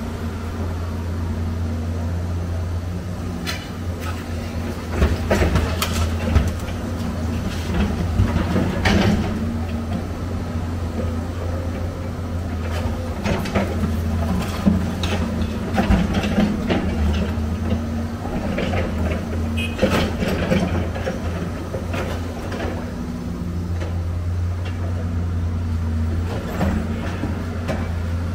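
Excavator's diesel engine running steadily while scrap metal clanks and scrapes in a dump truck bed, with irregular sharp metallic knocks now and then.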